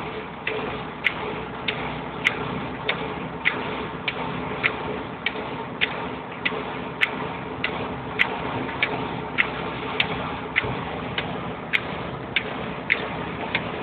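A sharp click repeating steadily about every 0.6 seconds inside a moving car's cabin, over a steady hum of road and engine noise.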